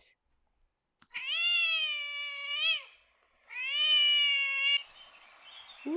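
A cat meowing twice: two long, drawn-out meows about a second apart, each rising at the start and dropping off at the end.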